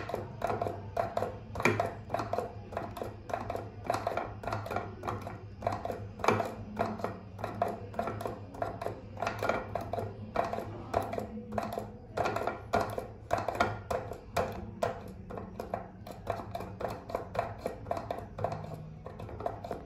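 Plastic pump of an empty liquid soap dispenser being pressed over and over, clicking about two to three times a second with no soap left to dispense.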